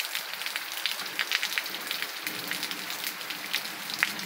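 Rain falling on a wet dirt street and concrete paving: a steady hiss with many close, separate drop taps.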